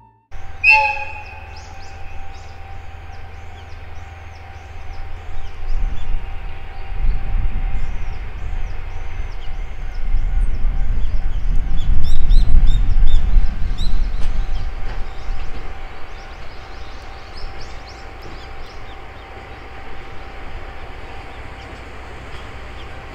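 Japanese level crossing alarm ringing, a repeated bell-like beat about twice a second, warning of an approaching train. Under it is the low rumble of the red DE10 diesel locomotive, which swells through the middle and eases near the end.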